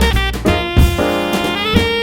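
Background jazz music with saxophone and drums.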